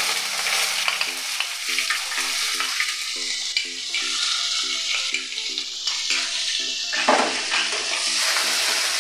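Sliced onions sizzling as they fry in hot mustard oil in a wok, with a spatula stirring and scraping the pan about seven seconds in.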